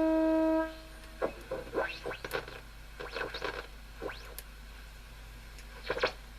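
A steady, buzzy test tone from the radio's loudspeaker during alignment stops abruptly under a second in. Faint clicks, scrapes and a few brief chirps follow as the set is handled and adjusted.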